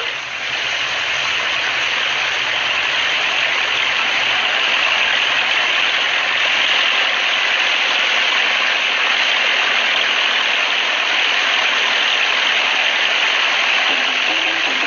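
A motor boat running steadily on a river: an even, hissing rush with a faint low engine hum beneath.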